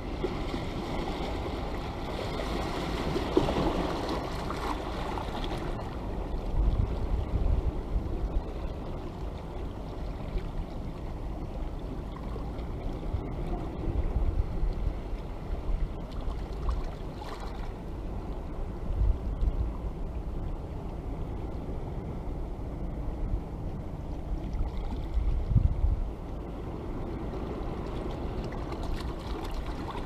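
Sea washing over a rocky shore as a steady noise, with a fuller swell of surf about two to five seconds in. Short gusts of wind rumble on the microphone every few seconds.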